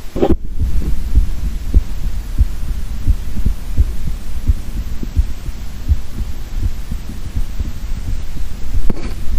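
A man's heartbeat heard through a stethoscope chestpiece wired to a microphone: a steady rhythm of low thumps over a constant low rumble, with a brief scrape near the start.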